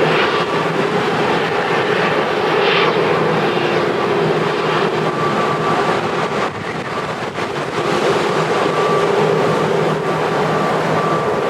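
Airbus A330-900 jet engines running with a loud, steady rush and a constant whining tone, easing slightly about seven seconds in.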